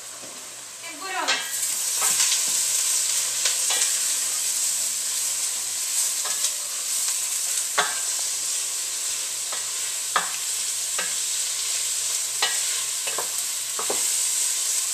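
Food sizzling in a frying pan, the hiss starting about a second in, with scattered clicks and scrapes of a utensil stirring it.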